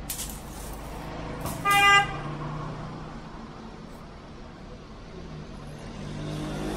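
A short, loud horn-like toot, one brief note lasting about a third of a second, about two seconds in, over a steady low hum.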